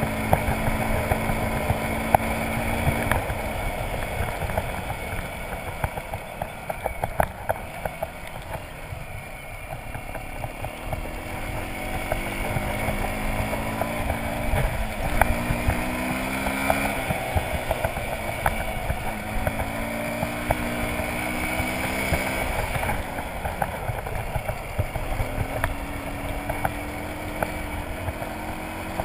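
Motorcycle engine on the move, its pitch climbing and dropping several times as the rider opens and closes the throttle, over the crunch and ticking of tyres on a gravel road.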